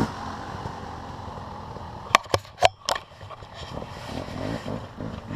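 Dirt bike engine running at low revs, with faint rises and falls in pitch. Four sharp clicks or knocks come about two to three seconds in.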